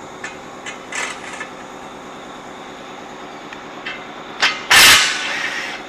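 A few light knocks, then a sharp knock and a loud bang about four and a half seconds in that trails off over a second, over a steady mechanical hum.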